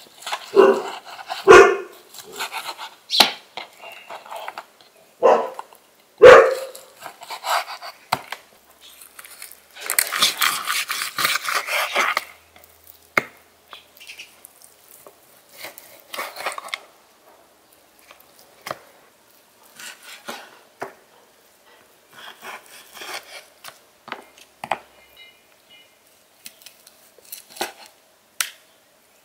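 A dog barking several times in the first seven seconds. After that, a large knife cutting lamb on a wooden board: scattered sharp knocks of the blade on the board, and a couple of seconds of rasping about ten seconds in.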